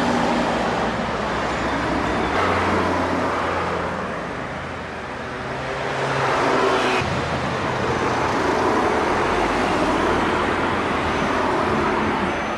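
Engine noise with a low hum and a rush of noise, easing off about five seconds in and swelling again.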